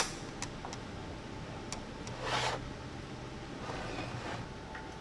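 A sharp click, then light ticks and two soft rustles of small parts and packaging being handled on a workbench, over the steady hum of shop air conditioning.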